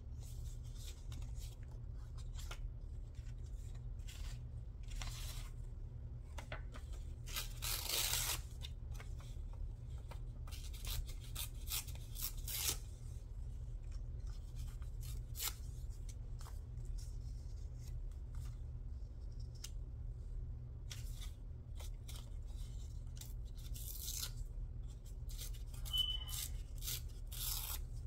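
Paper being torn and handled by hand: a string of short, irregular rustles and tears, the longest and loudest about eight seconds in.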